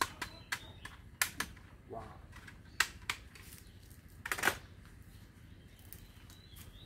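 Plastic toy guns clicking and clacking as they are handled: a string of sharp single clicks in the first three seconds, then a louder plastic clatter about four and a half seconds in as a gun goes into a plastic basket.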